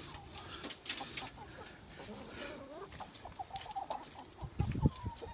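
Hens clucking in short, soft calls as they go after a beetle grub dropped into their run, with a few small clicks and low scuffs near the end.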